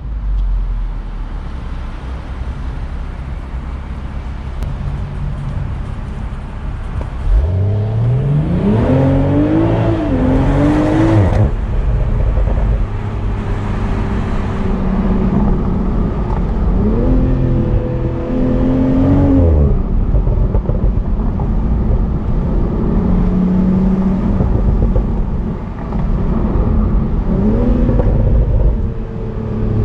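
BMW Z4 M40i's turbocharged 3.0-litre inline-six pulling hard through the revs three times: a long climb about a quarter of the way in, another a little past halfway, and a short one near the end. Between the pulls there is a steady low rumble of the engine cruising, with road noise.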